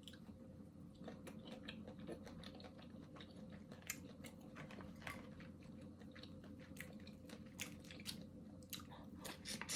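Close-miked eating sounds: irregular wet clicks and crunches of chewing and biting into buttered, seasoned seafood, over a faint steady hum.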